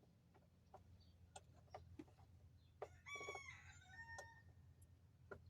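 Near silence with a few faint clicks, and a short faint bird call about three seconds in, followed by a brief second note a second later.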